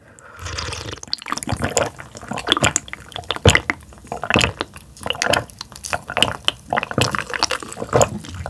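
Close-miked liquid sounds from a glass of grapefruit ade, with many small irregular clicks and splashes throughout.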